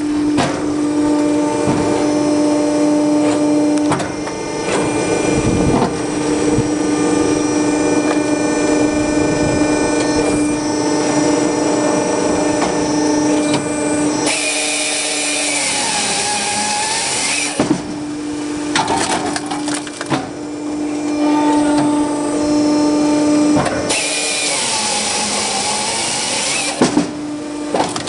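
Hydraulic firewood processor running with a steady hum, its hydraulically driven chainsaw (50 cm Stihl bar) cutting through a log twice, each cut about three seconds long, with knocks and cracks of wood being split and dropping.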